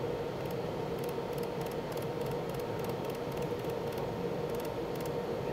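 A 300-watt pulsed YAG laser welder firing onto stainless filler wire, heard as faint, high-pitched ticks at irregular spacing, several a second, over the steady whirring hum of the welding station.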